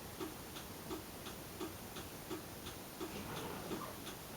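Car turn-signal flasher ticking steadily and faintly, about three ticks a second, with the right-side signal switched on.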